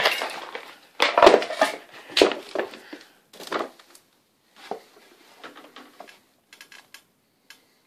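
Irregular handling knocks, scrapes and rustles as the camera is fumbled. The loudest clatter comes in the first two and a half seconds, then thins to scattered faint clicks.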